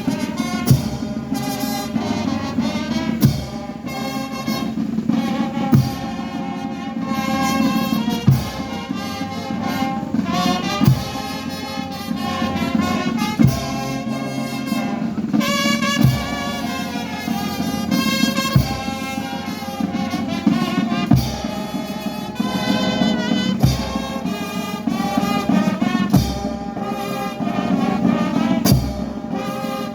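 Slow brass music, trumpets and trombones playing a sustained melody over a deep drum beat that strikes about every two and a half seconds.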